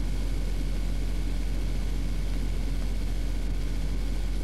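Steady low electrical hum under an even hiss, the background noise of an old home-video camcorder recording.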